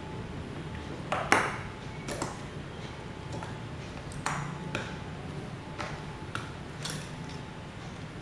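A series of light metallic clinks and taps, as of small metal fan parts and tools being handled, the loudest about a second in. A steady low hum runs underneath.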